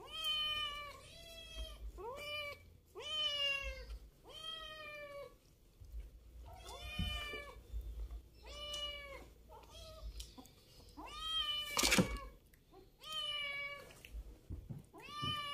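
A domestic cat meowing over and over, about ten meows, each rising at the start and then holding, as it pesters for the food being fed to a child. A single sharp clatter about twelve seconds in.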